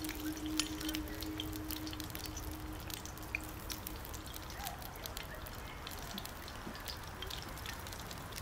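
Green peppers sizzling in a cast-iron pan over a wood fire, with small scattered crackles from the fire. A low held tone fades out over the first two seconds or so.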